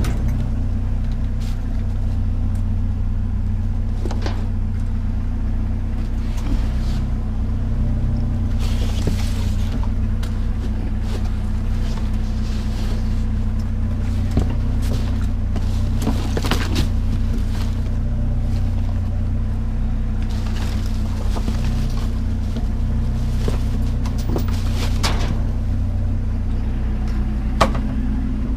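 Steady low drone of an idling engine, with scattered clicks and knocks from items being handled.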